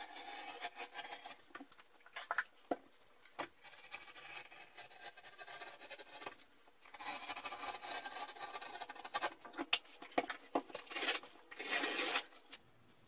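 Hand scoring of a green board drywall panel: irregular scratching and scraping strokes against the board with scattered sharp clicks, and a louder, longer rasp near the end as the cut piece is worked loose.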